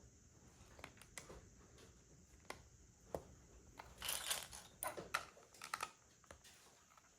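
Faint plastic LEGO pieces clicking and clattering as they are handled and pressed together, with a short rustle about four seconds in and a quick run of clicks just after.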